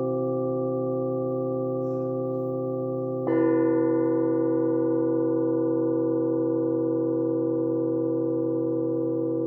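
Bilo, flat metal plate bells, ringing with a long sustained ring of several overlapping tones; a plate is struck again about three seconds in, adding a brighter ring that slowly fades.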